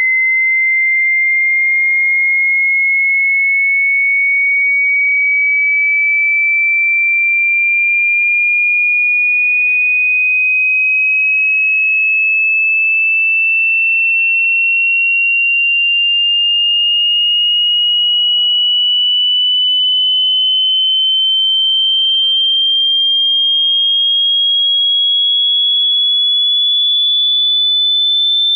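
Hearing-test sine tone: a single pure tone at a steady level, gliding slowly and evenly upward in pitch.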